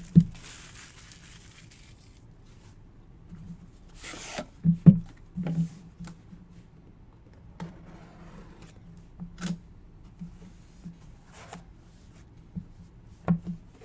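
Cardboard box and packaging of a sports-card hobby box being handled and opened: soft rustling, a brief tearing rustle about four seconds in, and scattered light knocks and taps.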